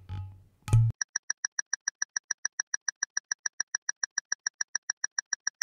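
Quiz countdown-timer sound effect: rapid, even electronic ticks, about six a second, each a short high-pitched pip. It is preceded by a low thud at the start and a louder one just under a second in, where the next question comes up.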